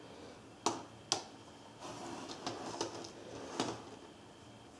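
Open metal tins of lead airgun pellets being handled and set down on a wooden table: two sharp clicks about a second in, then several lighter clicks over a soft rattle of pellets.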